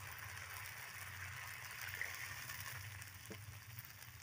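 Faint, steady sizzling hiss of broth simmering in a wok over an open wood fire, with a small click about three seconds in.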